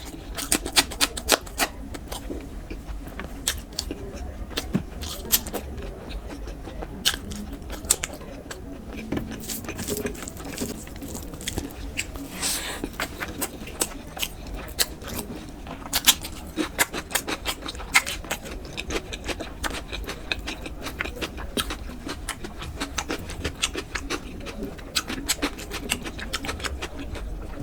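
Close-miked eating: wet chewing and mouth smacks, a steady run of many short clicks.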